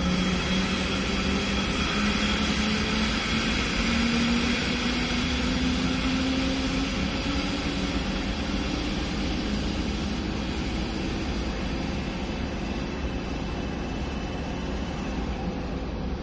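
Electric train pulling away, its traction motors giving a slowly rising whine over the first several seconds that then fades, over a steady rumble and hiss of trains idling in the station.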